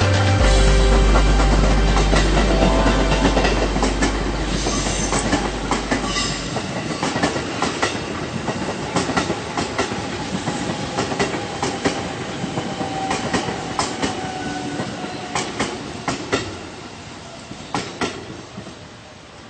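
Train wheels clacking over rail joints as a train passes and moves away. Loud with a deep rumble at first; the rumble drops out about six seconds in, and the clacks keep going while the sound slowly fades.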